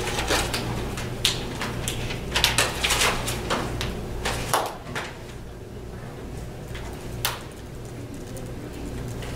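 Scattered clicks and knocks, thickest in the first five seconds and then a single click about seven seconds in, over a steady low electrical hum.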